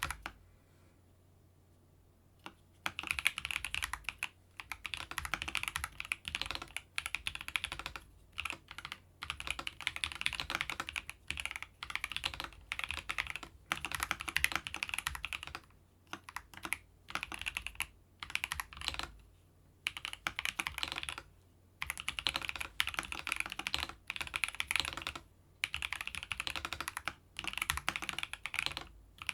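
Keychron V3 Max mechanical keyboard with banana switches being typed on quickly, the key clicks coming in bursts of a second or two with short pauses between them; the typing stops for a couple of seconds near the start.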